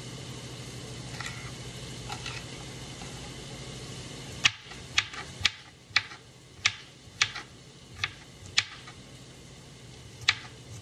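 Knife chopping green bell pepper on a plastic cutting board: about nine sharp knocks, roughly two a second, starting about four and a half seconds in. A steady low hum runs under the first part and stops as the chopping starts.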